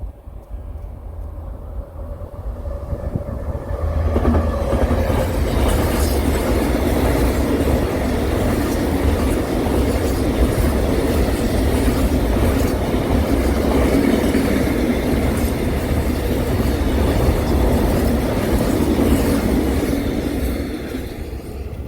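A train passing close by on the rails: it builds up over the first few seconds, turns loud about four seconds in, then runs past steadily with wheel noise and clacking from the rails, easing off slightly near the end.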